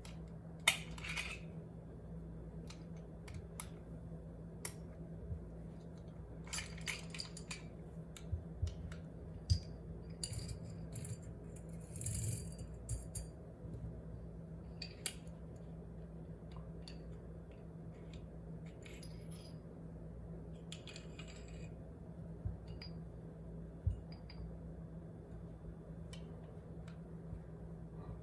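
Small metal parts of a .45 ACP 1911 pistol clicking and clinking as it is field stripped: scattered sharp clicks, some in quick clusters, with short clinks of steel parts set down on a hard surface.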